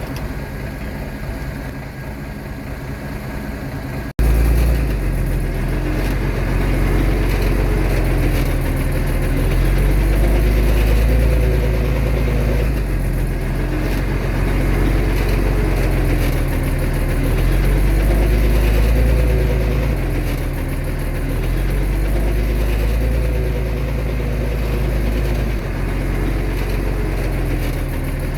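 Bulldozer's heavy diesel engine running under load, its pitch rising and falling as it works, with a deep low rumble. An abrupt change about four seconds in, after which the engine is louder and closer.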